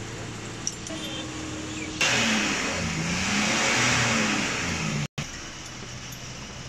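A motor vehicle engine revving over a loud rush of noise. It starts abruptly about two seconds in, its pitch rises and falls, and it cuts off suddenly about five seconds in, with a low steady hum before and after.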